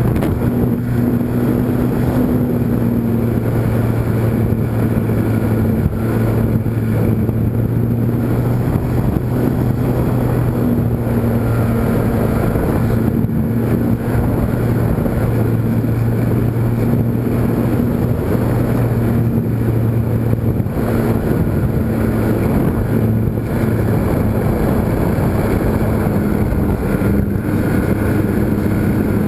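GWS Slow Stick electric model airplane's motor and propeller running steadily in flight, heard from the on-board camera with wind rushing over the microphone. It is a constant low hum that shifts slightly in pitch now and then.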